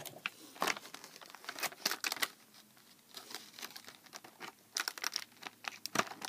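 Clear plastic doll packaging being handled and worked open, crinkling and crackling in irregular bursts, with a quieter stretch in the middle.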